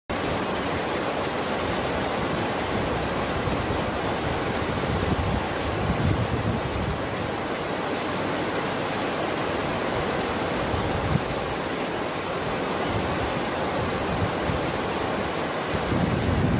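Steady rush of moving water.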